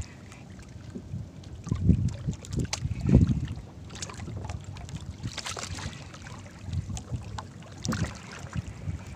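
Water lapping against a small outrigger boat's hull, with wind gusting on the microphone. The loudest gusts come about two and three seconds in.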